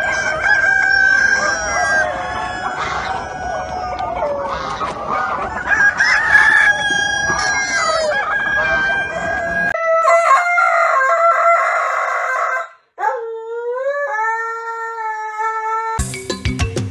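A flock of chickens clucking and calling all at once, with roosters crowing. In the second half come a few long drawn-out crows. Music cuts in just before the end.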